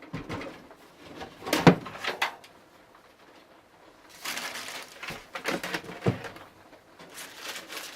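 A PC case being handled as it is opened up: a sharp knock a little under two seconds in, then scraping and rustling with a couple more knocks.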